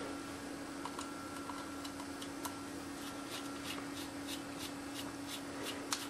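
Faint small clicks and scrapes of a precision screwdriver turning a tiny screw out of a Sony HDR-SR10 camcorder's housing, a few ticks a second, over a steady low hum.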